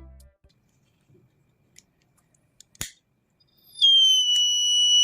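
A homemade fire alarm's buzzer sets off nearly four seconds in, sounding one loud, steady, high-pitched tone that holds without pulsing: the alarm triggered. Before it there is a short quiet broken by a single sharp click.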